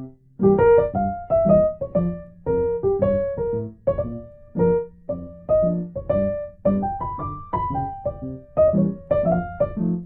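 Solo piano music: a melody of struck notes over lower bass notes, each note ringing and then fading.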